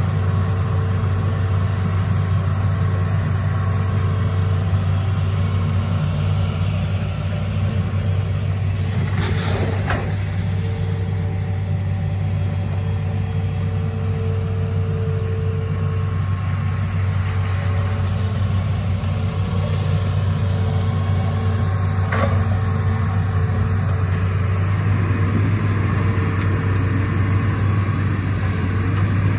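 Diesel engine of a Hitachi ZX210F amphibious excavator running steadily while the arm digs in the river, with two brief knocks partway through.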